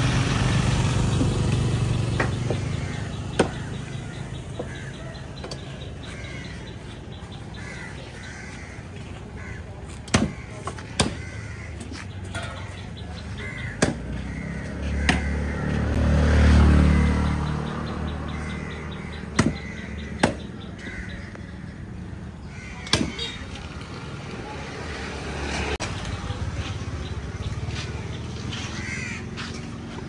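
Crows cawing on and off, with scattered sharp knocks. A low rumble swells and fades about halfway through.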